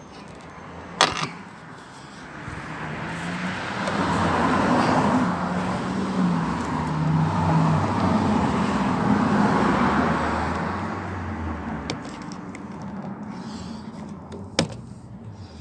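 A car passing by, its engine and tyre noise swelling over a few seconds and then fading away. There is a sharp click about a second in and another near the end.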